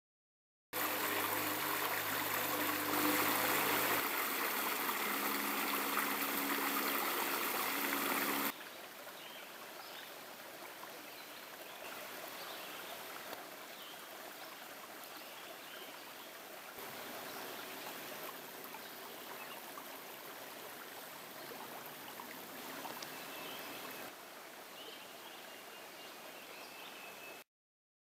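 A shallow woodland creek running over rocks: a loud, steady rush of water for the first several seconds, then a softer trickle after about eight seconds, with scattered bird chirps over it.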